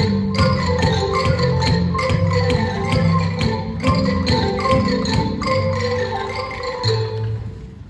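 Ensemble music of struck mallet percussion, quick pitched notes over low bass notes in a steady rhythm, fading out near the end.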